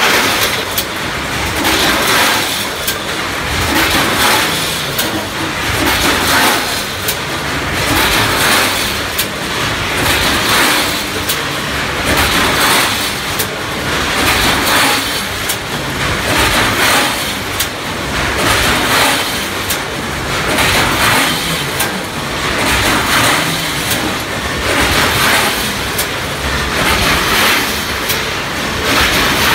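Automatic premade-pouch filling and sealing machine running, a steady mechanical clatter that swells and eases in a regular cycle about once a second, with many sharp clicks.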